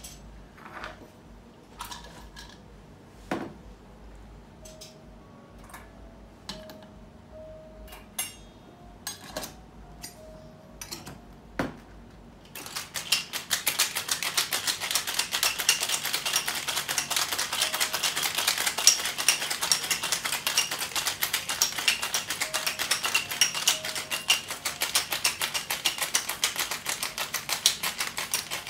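Ice rattling fast and evenly inside a stainless steel Birdy cocktail shaker being shaken hard, starting about twelve seconds in and carrying on to the end. Before that, a few scattered metal and glass clinks as the shaker is handled on the bar counter.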